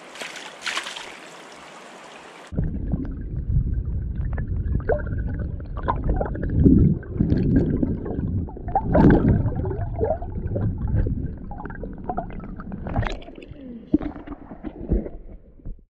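A stream runs steadily, then close-up water sloshes and gurgles with heavy, irregular rumbling noise on the microphone.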